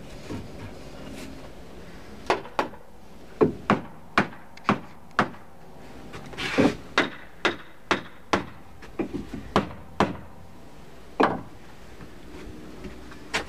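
Claw hammer striking the wooden rail of a terrace railing: about fifteen sharp, irregularly spaced blows, some in quick pairs, with a longer, noisier scrape about six and a half seconds in.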